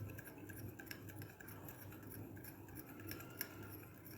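A spoon stirring aloe vera gel and rose water in a bowl: faint scraping and light clicks against the bowl, with one sharper click about three and a half seconds in.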